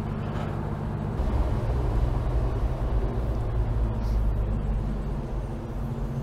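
Engine of a 1961 American LaFrance fire engine running as the truck is driven, heard from its open cab with road and wind noise. The low rumble grows louder about a second in.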